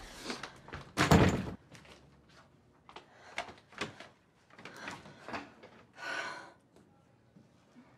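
An apartment door slams shut about a second in. It is followed by a series of lighter knocks and clatters at the door, then a short breathy hiss near the end.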